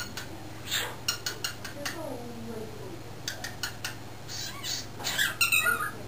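Cockatiel chattering: runs of quick clicks, a low falling note about two seconds in, and a louder call near the end.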